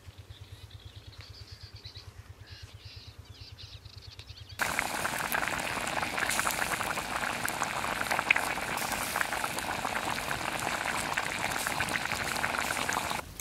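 Duck meat boiling hard in a clay pot over a wood fire: a dense bubbling with many small pops that starts suddenly about four and a half seconds in, after a quieter stretch of faint background.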